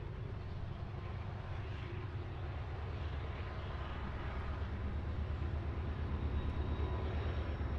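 Diesel freight locomotives working a grade, heard as a steady low rumble with a fast flutter that grows a little louder in the second half.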